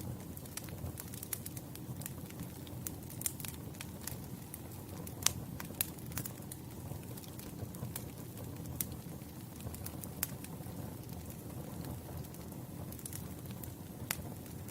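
Campfire burning with a steady low rumble and irregular sharp crackles and pops, the loudest a little after five seconds in and near the end.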